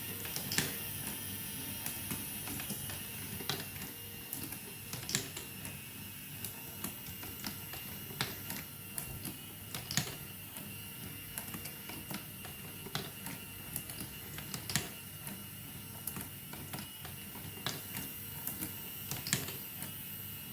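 Marbles running down a marble run track: irregular sharp clicks and clacks over a steady rolling rumble.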